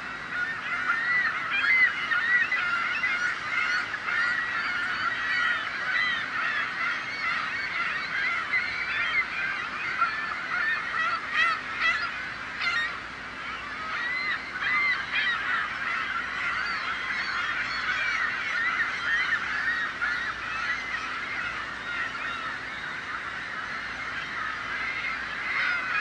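A flock of gulls calling without a break, many short cries overlapping at once.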